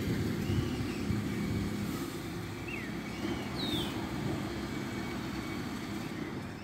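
Refuse collection lorry's engine running, a steady low rumble, with a few short high chirps over it.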